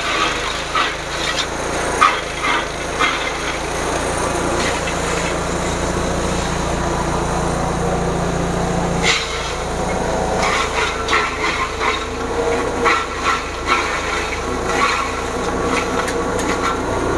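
Motor-driven forage chopper running steadily, its blades cutting stalks fed into it, with irregular sharp cracks and snaps as the material is chopped.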